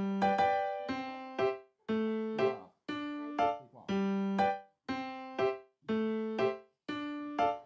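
Background music: a light keyboard tune of struck notes that fade away, in an even pattern of about two notes a second.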